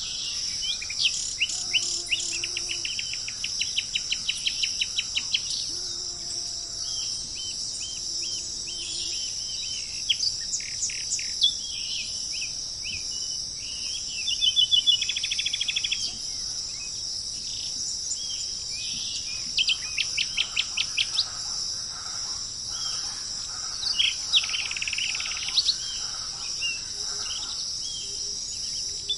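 Several wild birds calling over a steady high-pitched insect drone, tropical forest ambience. The birds give rapid runs of short repeated notes and sharp sweeping whistles, the loudest a fast buzzy trill about halfway through.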